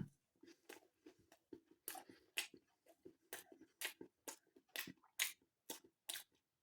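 Chewing a mouthful of crisp, flaky air-fried sausage roll pastry: faint, irregular crunches, two or three a second.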